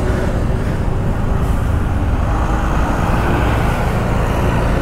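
Motorcycle riding along: the engine runs steadily under road and wind noise, with no change in pitch.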